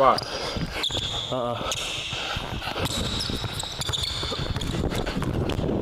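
Basketball being dribbled on a hardwood gym floor, a run of irregular bounces.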